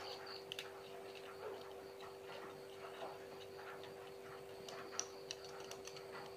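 Quiet room with faint, irregular light clicks and ticks over a steady low hum.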